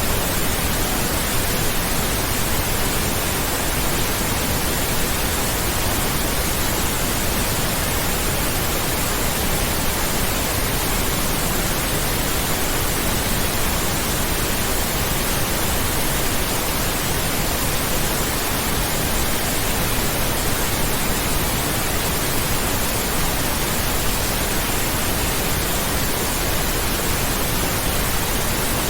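Steady pink noise: an even, unchanging hiss spread across the whole range from deep to high.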